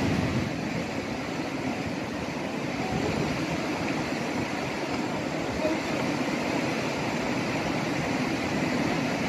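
Steady rushing of stream water, an even hiss with no breaks.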